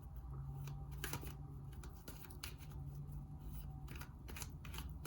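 Tarot cards being handled and shuffled: a run of soft, irregular clicks and flicks, over a faint steady low hum.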